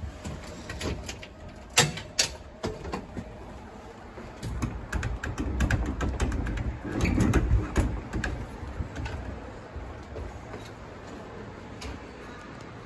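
Heard from inside a tram: two sharp knocks and some scattered clunks, then a low rumble with rattling for a few seconds about halfway through that dies away.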